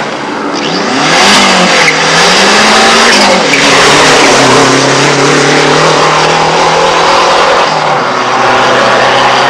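Rally car engine accelerating hard close by, its pitch climbing, dipping and climbing again as it is driven through the gears, then falling back to a steadier, lower engine note.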